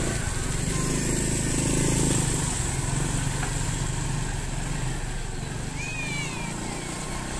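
Loaded dump truck's diesel engine running at low revs, with a motorcycle passing close by and riding away, loudest about two seconds in before easing off.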